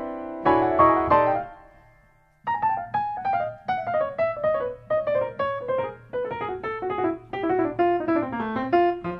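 Background piano music: a few ringing chords die away to near silence, then about two and a half seconds in a new passage of quick single notes begins over a low bass.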